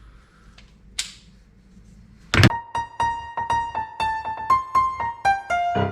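A single click about a second in. Then, after a sharp hit at about two and a half seconds, piano music starts: a melody of quick single notes, about three or four a second.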